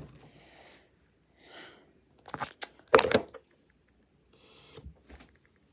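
A few sharp knocks and clatters in a quick cluster midway, with short rustling sounds before and after: things and clothes being handled around a dresser drawer.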